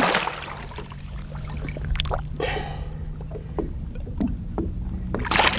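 Muskie thrashing in a landing net at a boat's side: water sloshing and small splashes, with a low steady hum underneath.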